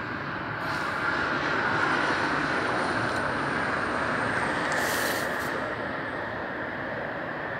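Steady rush of motorway traffic heard from above, tyres and engines of lorries and cars blending into one noise that is louder through the middle, with a brief hiss about five seconds in.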